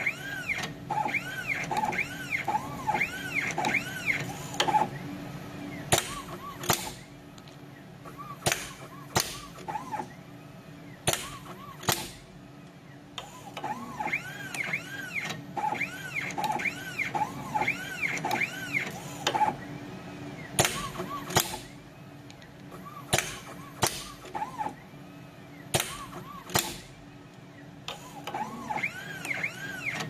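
3D CNC wire stripping, bending and cutting machine working through its cycle. Its motors whine in quick rising-and-falling sweeps as the head feeds and bends the wire, with sharp clicks, often in pairs, in between.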